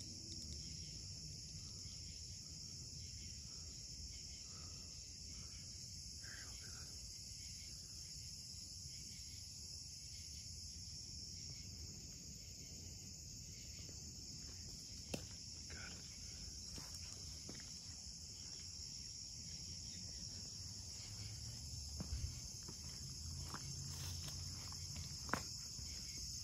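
Steady high-pitched insect chorus, with a few sharp clicks, one about fifteen seconds in and a couple near the end.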